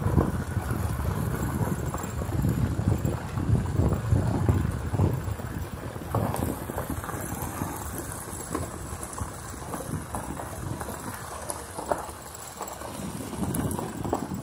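A vehicle rolling slowly over a rough surface: a low rumble with irregular knocks and rattles, and wind on the microphone. It is louder for the first few seconds and quieter from about six seconds in.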